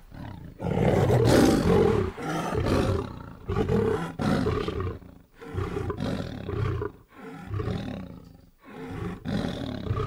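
A large animal calling in a series of loud calls, about one a second, each lasting less than a second.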